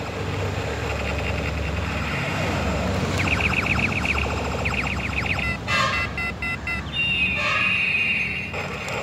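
Electronic sound effects from a battery-powered toy military jeep: a rapid pulsing tone over a low hum, broken beeping tones about six seconds in, then a falling tone.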